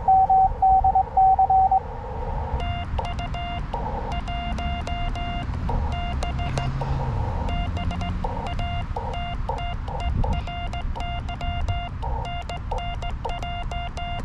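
Morse code (CW) from a small FX-4C SDR transceiver's speaker, a keyed tone inside a narrow band of receiver hiss. For the first two seconds a strong incoming signal is heard. From about two and a half seconds on, the operator's own sending plays as a slightly weaker keyed sidetone, with the receiver hiss muted under each character and returning between them (full break-in), and small clicks at the edges of the elements.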